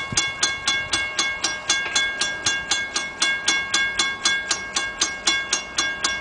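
Railroad grade-crossing bell ringing in an even run of about four strikes a second, each strike ringing on the same few tones. It is the warning that a train is approaching while the crossing gates lower.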